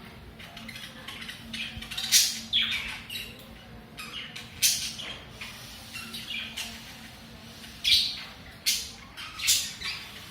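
Pet budgerigars chattering in short, sharp squawks and chirps, with a few louder calls spread through.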